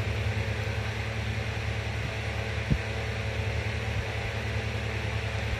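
Steady low mechanical hum with a hiss over it, like a running electric fan, with one soft thump a little before the middle.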